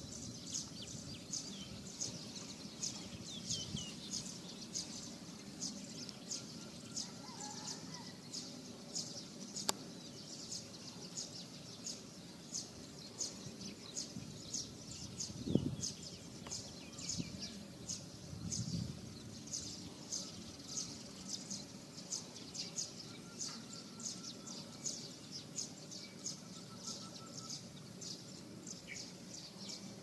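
Outdoor ambience carried by steady high-pitched chirping, a few short chirps a second. A single dull thump comes about halfway through.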